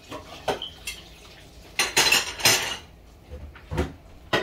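Evaporated milk poured from a can into a large aluminium pot, with scattered clinks of metal kitchenware and a louder stretch of splashing noise about two seconds in.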